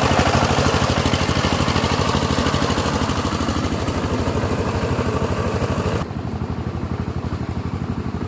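Small engine of a hand-guided wheat harvesting machine (walk-behind combine) running steadily with rapid, even pulses and mechanical clatter. About six seconds in the higher clatter drops away suddenly and the engine sounds duller.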